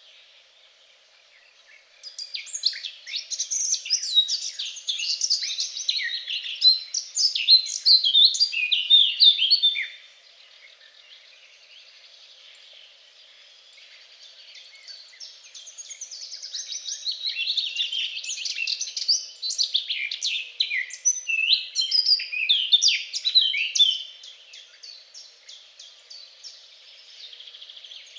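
A songbird singing two long, rapid, varied phrases of high twittering notes, each about eight seconds long, over a faint steady background hiss.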